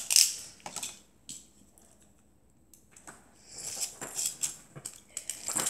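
Small plastic clicks and rattles of a Beyblade top and its launcher being handled: a few clicks, a quiet pause, then a short run of clicking and rattling.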